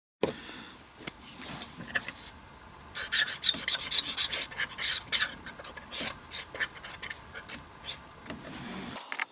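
A felt-tip permanent marker rubbed back and forth on a steel saw-blade blank, marking it out before drilling: quick, scratchy rubbing strokes, busier and louder from about three seconds in.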